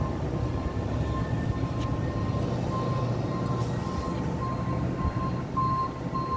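Tow truck's engine running with a low rumble while a back-up alarm beeps in an even series of short, high beeps as the truck reverses.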